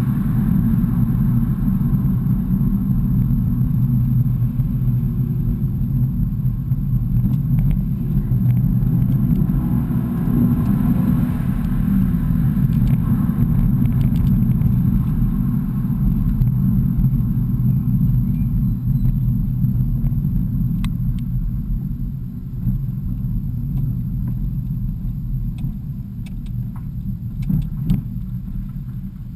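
Car driving, heard from inside the cabin: a steady low rumble of engine and road noise that eases off over the last several seconds as the car slows, with a few faint clicks near the end.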